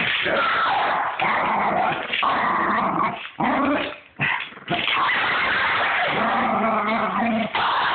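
A pug growling almost without pause, with two short breaks about halfway through.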